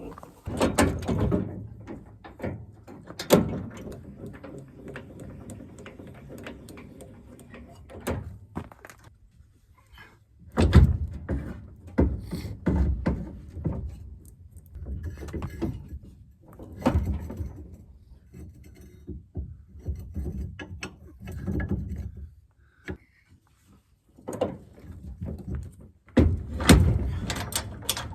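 Irregular thunks and knocks of work on a trailer being levelled, coming in clusters with short pauses between them.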